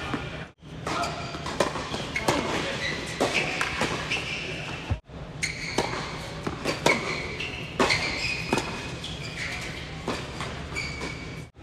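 Tennis doubles rally on an indoor hard court: sharp pops of racquets striking the ball and the ball bouncing, with short high sneaker squeaks, echoing in a large hall.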